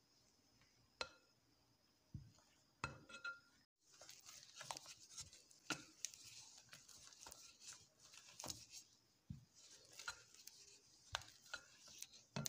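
Spatula scraping and tapping against a mixing bowl while cake batter is folded: quiet, irregular scrapes and light clicks.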